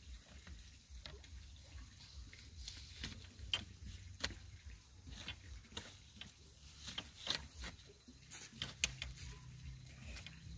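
Split bamboo strips and stakes knocking and clacking together as they are handled, in irregular sharp clicks and taps, a few of them louder knocks.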